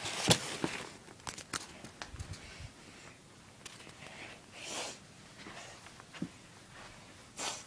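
Handling noise of gear and fabric being moved about: rustling and crinkling, with a sharp knock just after the start, a few clicks and brief rustles.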